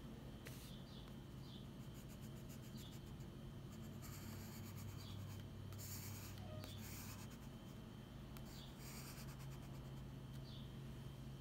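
Pencil scratching across sketchbook paper in short bursts of strokes, busiest in the middle.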